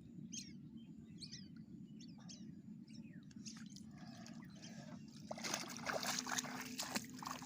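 Water splashing and trickling, growing louder and busier in the last couple of seconds, with a few bird chirps near the start.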